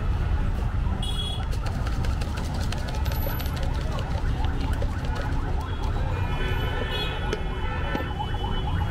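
Puffed rice and spices rattling as they are shaken in a lidded plastic mug, a fast dense clicking, over a steady low street rumble. About six seconds in, a high electronic sound of several tones joins.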